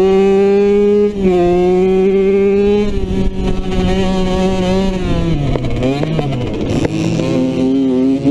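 Dirt bike engine running hard at high, steady revs. There is a brief dip about a second in, then the revs fall and waver past the middle before picking back up near the end.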